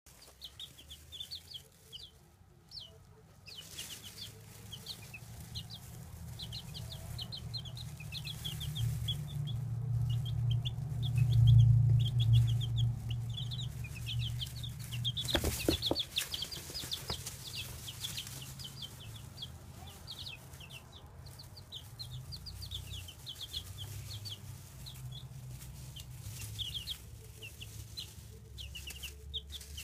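Baby chicks peeping continuously, a rapid series of short, high, falling peeps. A low rumble swells through the middle, loudest about twelve seconds in, and a few sharp knocks come a few seconds later.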